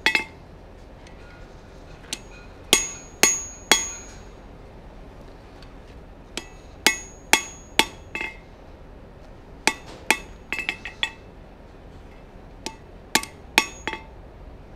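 Blacksmith's hand hammer striking a red-hot 4142 steel bar on the anvil, each blow ringing briefly. The blows come in four quick runs of three to five, with short pauses between, and a few lighter taps about ten seconds in.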